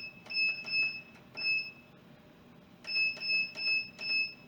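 Electric pressure cooker's control panel beeping as its buttons are pressed to set high pressure and the cooking time: short high-pitched beeps, each starting with a button click, four in the first second and a half and four more about three seconds in.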